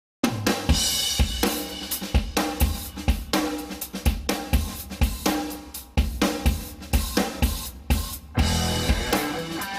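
Background music with a steady drum-kit beat of snare, hi-hat and cymbals; a fuller section with heavier bass comes in near the end.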